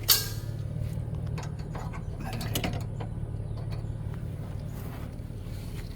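A sharp metallic clank right at the start, then a few lighter clicks and knocks as weight distribution hitch hardware is handled, over a steady low hum.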